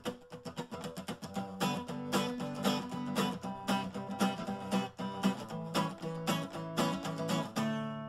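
Theme music: an acoustic guitar strummed in a steady rhythm, the instrumental opening of the show's theme song.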